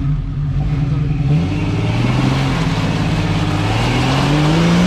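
1985 Toyota pickup's engine revving under load as the truck climbs a steep rock ledge: the engine note dips about a second and a half in, then rises steadily for the rest of the climb.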